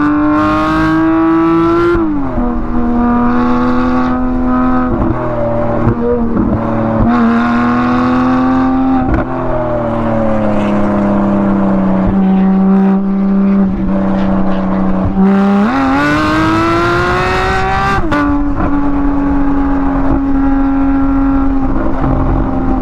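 Porsche 718 Cayman GT4's naturally aspirated 4.0-litre flat-six, modified for sound and recorded by an external microphone, pulling up through the revs on track. It drops in pitch at quick gear changes, eases off for a few seconds, then makes a hard climb that ends in a sharp upshift near the end.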